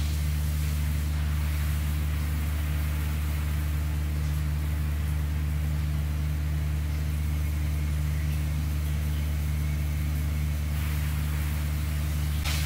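A steady low mechanical hum, like a running motor, under a soft hiss of water spraying from a handheld shower head onto tiles.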